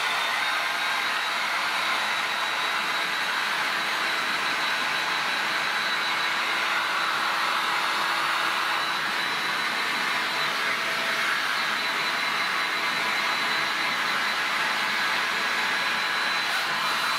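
Hot-air heat gun running steadily: a constant rush of blown air with a thin, steady high-pitched whine from its fan motor.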